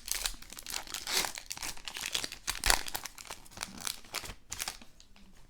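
Plastic-foil trading-card pack wrapper crinkling and tearing as it is ripped open, a run of rustling crackles that dies down near the end.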